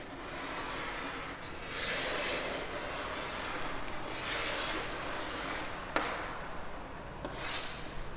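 Chalk scraping across a blackboard as sound waves are drawn: several long scratchy strokes, with a sharp tap of the chalk about six seconds in and a short bright squeak-like stroke near the end.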